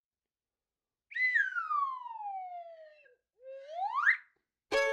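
A whistle-like sound effect gliding slowly down in pitch for about two seconds, then after a short gap sweeping quickly back up. Music with fiddle starts just before the end.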